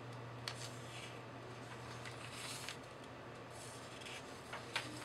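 Sketchbook pages being turned and smoothed by hand: soft paper rustles and brushes, with a few light ticks near the end, over a steady low hum.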